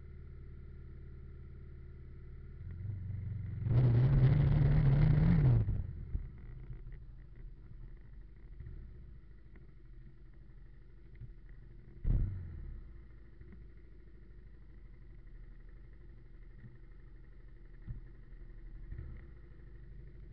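Motorcycle engine idling steadily. About four seconds in, a loud two-second burst of throttle rises slightly in pitch, then drops back to idle. A single sharp thump comes about twelve seconds in.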